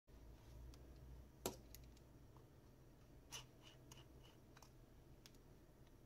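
Light handling clicks and taps as a smartphone and a small screwdriver are handled and the phone is set down on a wooden desk: a handful of short clicks, the sharpest about a second and a half in and another around three and a half seconds in, over a faint low hum.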